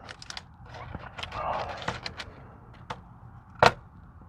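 Scattered small clicks and crackles of someone eating and handling fried food from a takeout box, with one sharper click about three and a half seconds in.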